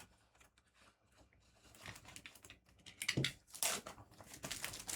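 Plastic and foil trading-card packaging crinkling and tearing as it is opened, starting with a few faint clicks and building to louder crackles from about two seconds in.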